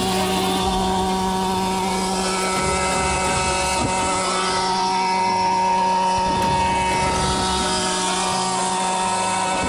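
Large radio-controlled scale model helicopter hovering low, its engine and rotor running at a steady pitch.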